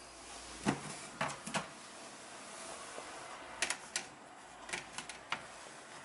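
Plastic stacking trays of a food dehydrator being handled: a series of light clicks and knocks in small clusters.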